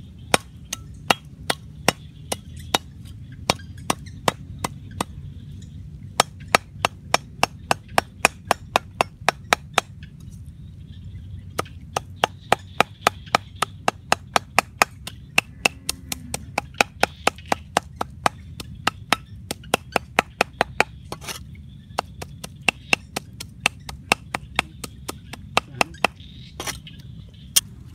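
Meat cleaver chopping on a round wooden chopping board: sharp, even knocks at about three a second, in runs broken by brief pauses.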